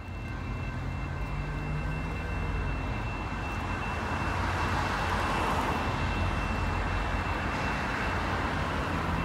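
Steady, distant rumble of vehicles with a faint hum, growing slightly louder after the first few seconds.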